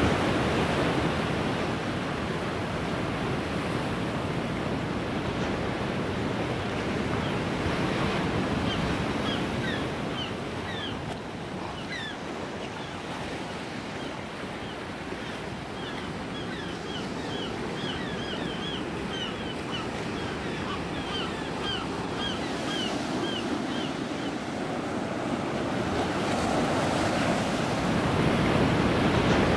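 Steady rushing ambient noise that eases off in the middle and swells louder near the end, with a run of faint, short, high chirps through the middle stretch.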